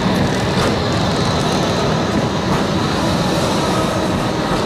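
A Končar TMK 2200 low-floor electric tram rolling past close by: steady rumble of wheels on rails with a faint high whine, and a couple of light clicks.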